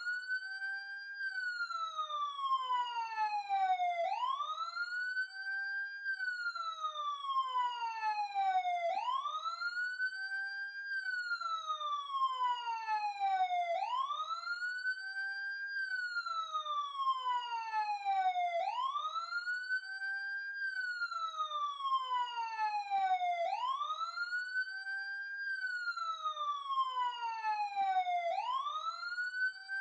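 Police siren in wail mode: the tone climbs quickly over about a second, then falls slowly over three or four seconds, repeating about every five seconds.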